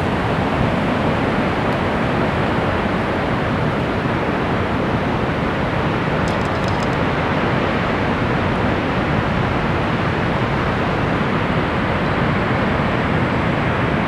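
Niagara Falls: a loud, steady rush of falling water.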